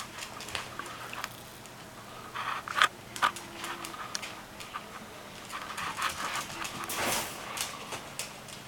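Scottish terrier puppy scampering on a hardwood floor, its claws clicking and skittering in scattered bursts, with breathy panting now and then.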